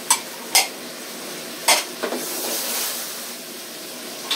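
Kkakdugi and its juice sizzling steadily in a frying pan over a gas burner, with three sharp clinks of dishes and utensils in the first two seconds. The sizzle brightens about two seconds in as the pan is worked.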